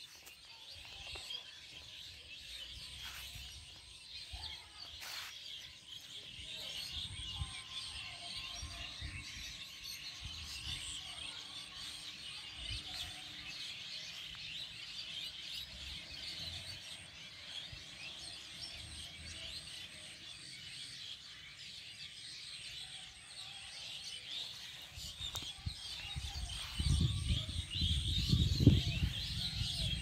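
A dense chorus of many small birds chirping and twittering without a break. Near the end, low rumbling knocks, like wind or handling on the microphone, briefly rise over it.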